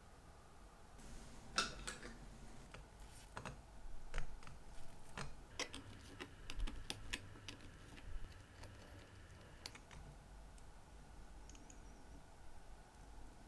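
Irregular light clicks and taps of small watchmaker's tools on a watch case as pliers grip the broken winding stem at the crown tube and pull it out. The clicks stop about ten seconds in.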